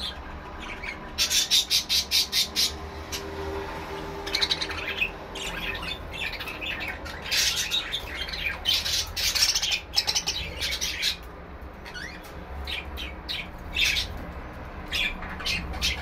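Budgerigars chattering and squawking: a quick run of about eight sharp chirps near the start, then irregular bursts of high chatter.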